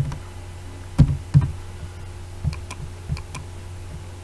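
Computer mouse clicks and light desk knocks while a user works, a few isolated clicks followed by a quicker run of sharper clicks about two and a half seconds in, over a steady low electrical hum.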